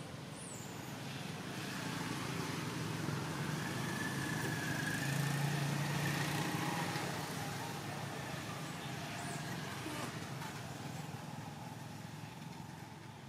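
A passing engine, its low steady hum swelling to a peak about halfway through and then fading away.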